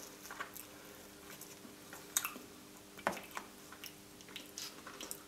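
Plastic spoon scooping through whipped cream and a soft chocolate dessert: a few soft wet squishes and clicks, the sharpest about two and three seconds in.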